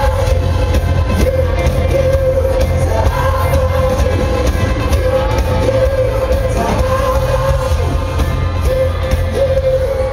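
Live pop music: a male singer over the band, with heavy bass and a held keyboard tone.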